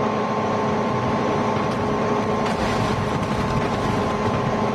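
Sound effect of a high-speed train running: a steady rushing rumble with a steady whine over it.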